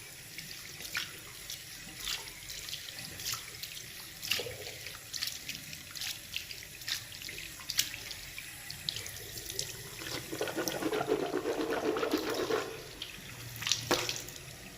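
Tap water running into a sink, with irregular splashes; about ten seconds in it sounds fuller and louder for two or three seconds.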